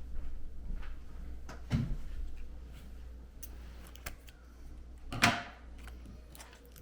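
Handling noises from wrapping a LiPo battery pack in clear tape: scattered light clicks and knocks on the bench, a low thump just under two seconds in and one louder brief rasp a little after five seconds, over a steady low hum.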